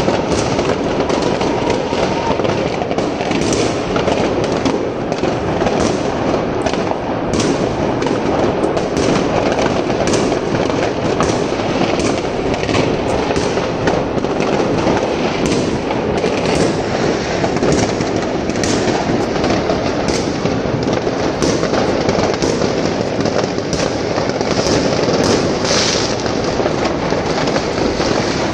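Many fireworks going off at once: a continuous din of crackling with frequent sharp bangs.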